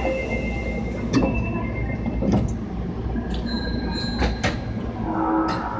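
Interior running sound of an unrenovated Osaka Metro 22 series subway train: a steady low rumble with several sharp knocks and a few thin high tones, clearest in the first second and a half.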